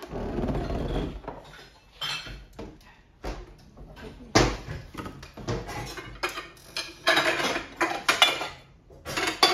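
Kitchen handling clatter: a plastic blender jar is lifted off its base and set down on a stone countertop, and dishes are knocked about in a cupboard. It comes as a string of knocks and clinks, with one sharp knock about four and a half seconds in and a denser rattle near the end.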